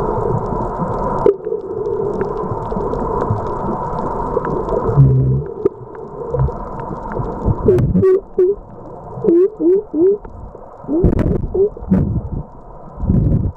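Underwater sound picked up by a camera just below the surface: a steady droning hum for about the first five seconds, then water sloshing and bubbling around the camera, with short gurgling blips, clicks and heavy low thumps.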